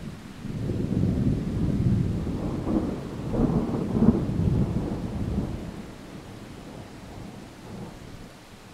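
Distant thunder rolling: a low rumble that swells about half a second in, peaks over the next few seconds, then slowly dies away.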